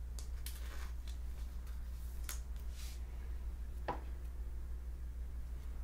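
Trading cards in clear plastic sleeves being handled, giving a few faint crinkles and clicks, over a steady low hum.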